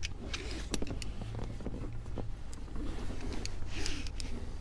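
Seat belt webbing and its metal latch plate being handled as the belt is pulled down to untwist it: scattered light clicks and rustles over a steady low hum.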